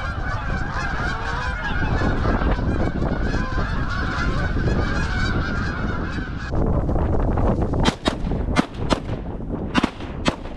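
A large flock of Canada geese honking over steady wind rumble on the microphone. About six and a half seconds in, the honking stops abruptly, and several sharp cracks follow.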